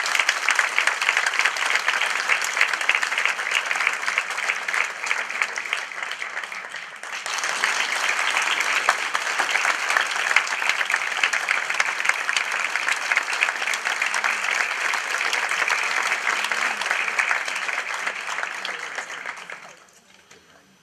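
Audience applauding, easing off a little about six seconds in, swelling again about a second later, then dying away near the end.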